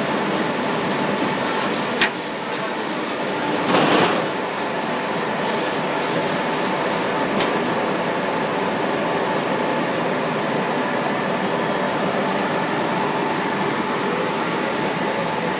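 Steady mechanical running noise of a laser machine processing stainless steel sheet on rollers, with a fume extractor drawing air. There is a sharp click about two seconds in and a short, louder rush about four seconds in.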